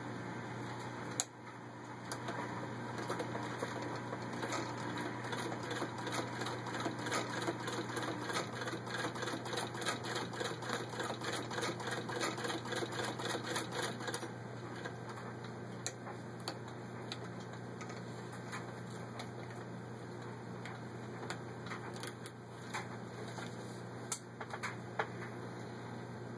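Antique 1913 White Rotary sewing machine turned by hand at its handwheel, its needle stitching through six layers of denim with a rapid, even mechanical ticking. About fourteen seconds in the stitching rhythm stops, leaving a few scattered clicks.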